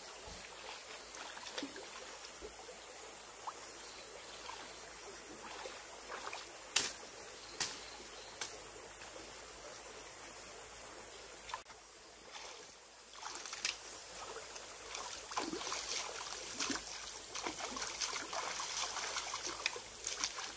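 Shallow stream running, with a few sharp knocks about a third of the way in. In the second half the water splashes and sloshes as hands and legs move in it.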